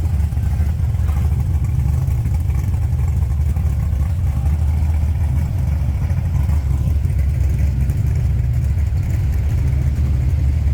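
Car engine idling with a steady deep rumble.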